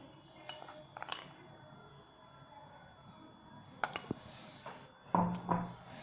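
A metal spoon lightly clinking and scraping against a ceramic mug and plate as cocoa powder is spooned in, with a few scattered taps.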